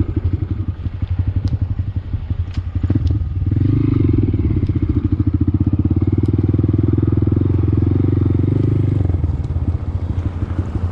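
Honda Grom's small single-cylinder four-stroke engine running as the motorcycle is ridden. The throttle opens at about a third of the way in, holds the engine louder and steadier for several seconds, then eases off near the end.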